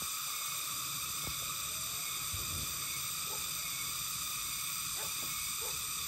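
Chorus of cicadas singing, a steady high-pitched buzz that holds level throughout. Faint short chirps sound now and then beneath it.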